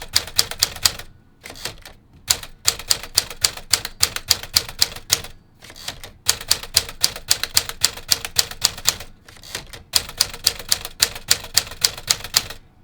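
1954 Smith Corona Silent Super manual typewriter being typed on quickly: fast runs of sharp key strikes, about seven a second, broken by three short pauses.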